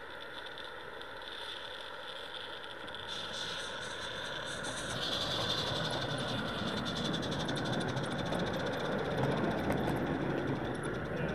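Roundhouse Karen gas-fired live-steam garden-railway locomotive getting under way with the snow plough, its wheels rattling and clicking over the track and the sound growing louder as it picks up speed.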